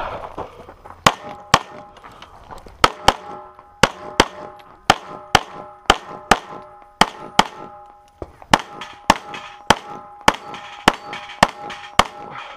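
A string of about twenty pistol shots fired in quick pairs and singles, roughly half a second apart, with steel targets ringing on after the hits.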